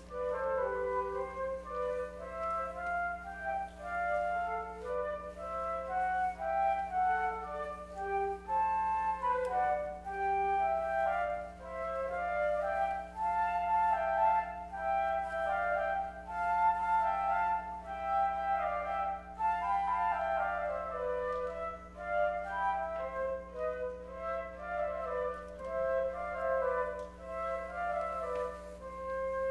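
Two concert flutes playing a duet, two melodic lines moving together, over a low steady hum.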